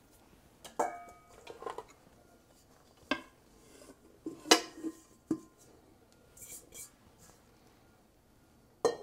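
A stand mixer's paddle attachment being handled and cleaned of dough, giving a series of sharp clinks and knocks of kitchen utensils. There are about six knocks, one near the start with a short ring, and the loudest comes about halfway through.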